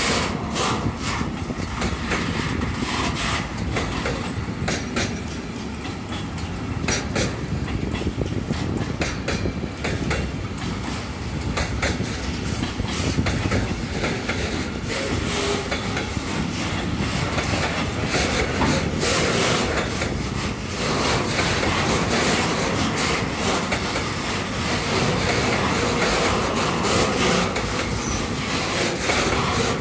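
Container wagons of a freight train rolling past, wheels clicking over the rail joints in a continuous clatter.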